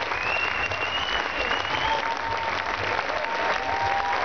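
Crowd applauding in a tent, with a long high whistle rising slightly over the first two seconds and fainter whistled tones near the end.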